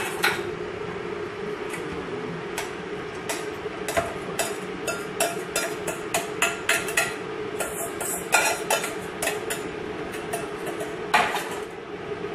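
A metal utensil clinking, knocking and scraping against stainless steel saucepans as food is scraped out of one pan into another, in quick irregular strikes with a louder knock near the end. A steady hum runs underneath.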